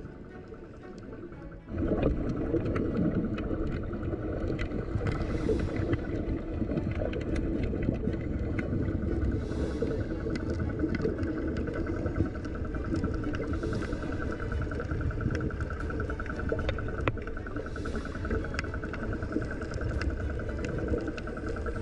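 Muffled boat-engine drone heard underwater through the camera housing, with a fine, steady whirring rhythm; it comes in loud about two seconds in. Short hisses of bubbles rise above it about every four seconds.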